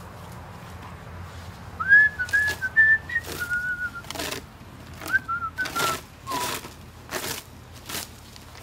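A person whistling a short tune in two phrases, the held notes stepping up and then falling away. Several short rushing noises come in between.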